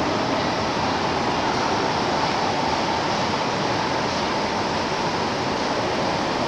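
London Underground 1938-stock tube train running past along the platform of a deep-level tube station, a steady rushing noise of wheels and motors echoing off the tiled tunnel walls, with a faint high hum through it.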